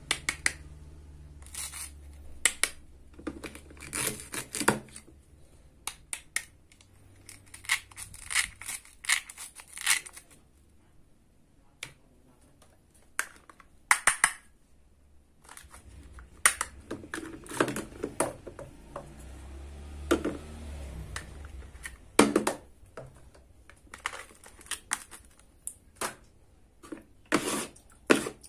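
Wooden toy knife cutting plastic toy fruit: a string of short, scratchy rips as the fruit halves pull apart at their hook-and-loop seams, mixed with light taps of knife on plastic, coming in irregular bursts with short pauses between.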